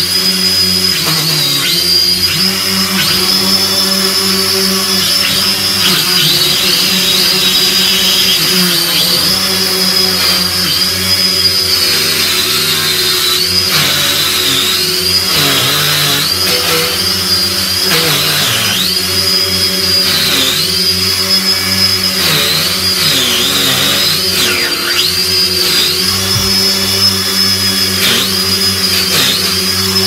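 Small quadcopter drone's electric motors and propellers whining continuously while held in the hand close to the floor, the high whine dipping briefly in pitch again and again.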